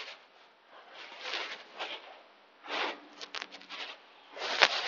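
Clothing and a woven blanket rustling and scuffing on a yoga mat in several short bursts as a person pushes up from lying on her side, with a light tap near the end.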